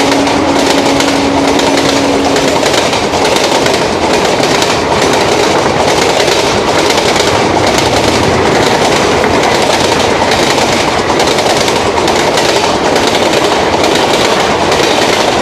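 Superfast passenger train of about twenty coaches rushing past at speed, its wheels clattering in a rapid stream of clicks over the rail joints. A locomotive horn holds one steady low note for the first two and a half seconds, then stops.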